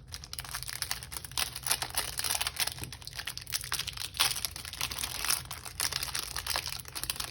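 Plastic wrapping on a hanger box of trading cards crinkling and tearing as it is opened and pulled away, a dense, uneven crackle.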